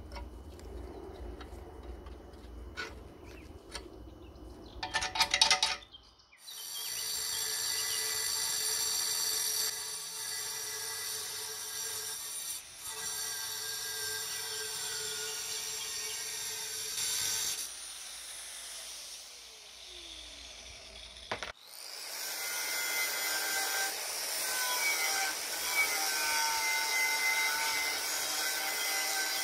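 Metal clicking and a loud rattle from work on rusted bolts, then an angle grinder with a thin cutting disc starts about six seconds in and whines steadily. Its pitch falls as it spins down, it starts again after a sharp click and cuts through a rusted bolt on the stove's steel body, getting louder and rougher.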